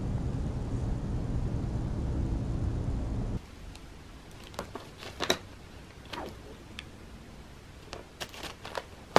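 A steady low rumble of outdoor background noise that cuts off suddenly about three seconds in. After it come scattered sharp crinkles and crackles of a paper coffee filter as a cat rubs its face in it and mouths it.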